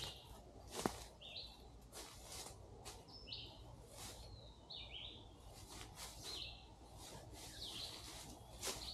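A bird calling over and over, one short chirp every second or two. Short crunching clicks come between the calls, the loudest about a second in.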